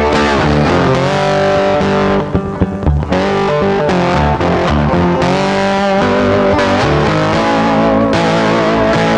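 Background music led by electric guitar, with sustained notes that slide in pitch and a short choppy break about two seconds in.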